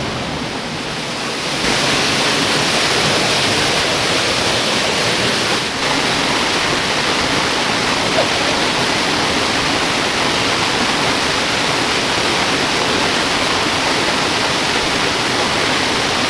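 Steady rushing of flowing creek water, an even noise that grows a little louder about two seconds in.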